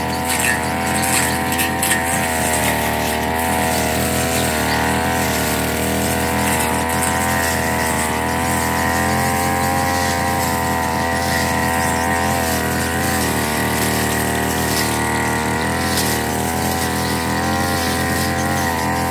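Backpack brush cutter's small petrol engine running steadily at cutting speed, its pitch rising and dipping slightly as the cutting head works through tall grass and weeds.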